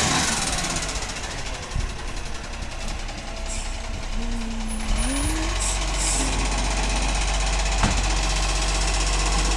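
Side-loading garbage truck's diesel engine running with a heavy low rumble as it drives past and pulls up at the bins, a whine rising in pitch around the middle and one sharp click near the end.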